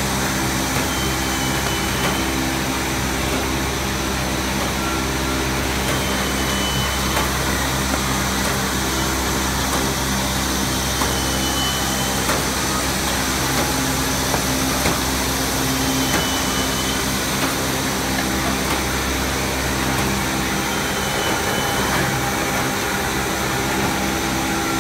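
Single-facer corrugated paperboard production line running steadily: a dense, even machine noise with several steady low hums. A faint short high tone comes back about every four to five seconds.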